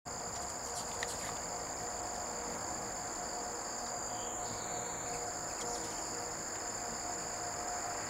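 Steady, high-pitched chorus of insects, unbroken throughout, with a fainter steady lower hum beneath it.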